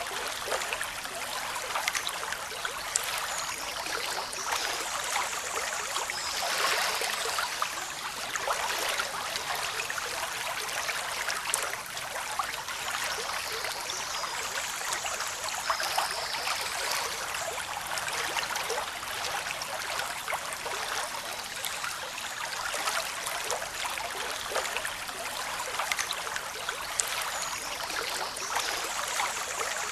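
Sea water washing and lapping continuously, swelling louder about every ten seconds.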